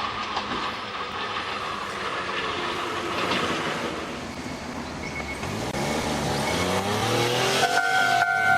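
Kotoden Shido Line electric train running, its wheels clattering over rail joints. About halfway through, its traction motors start a whine that rises in pitch as the train picks up speed. Near the end, a steady two-note tone comes in over the train.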